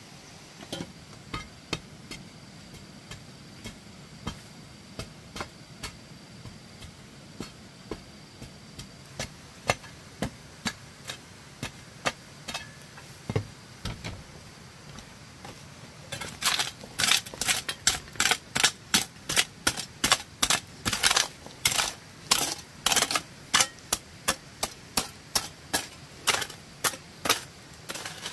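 Short-handled hoe chopping into packed dirt and stony clods, a run of sharp strikes. The strikes are sparse and softer at first, then from about halfway on come louder and faster, about two a second.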